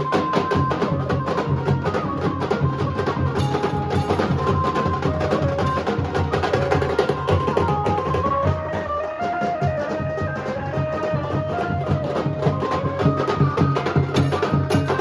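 Nasik dhol band playing: dhol and tasha drums beating a fast, dense rhythm, with a melody line of short held notes over it.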